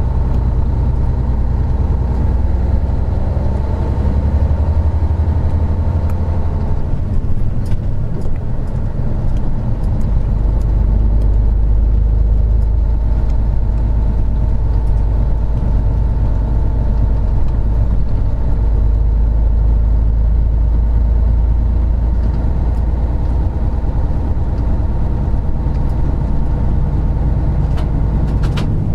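Isuzu Gala III coach's 12PE1 V12 diesel engine running under way. The engine note climbs over the first several seconds, drops to a lower note about seven seconds in, runs steadily after that, and changes again near the end.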